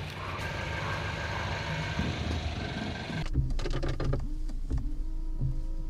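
Outdoor street noise from vehicles, then, about three seconds in, a sudden change to the low rumble of a car driving, heard from inside the cabin.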